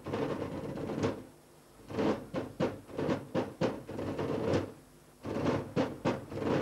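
A fist knocking rhythmically on a glazed window pane, about four to five quick knocks a second, in runs with short pauses about a second in and near the end.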